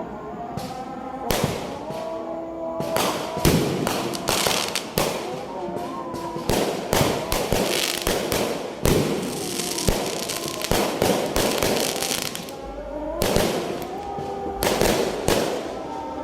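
Fireworks going off in quick succession: many sharp bangs, with a dense stretch of crackling about eight to ten seconds in.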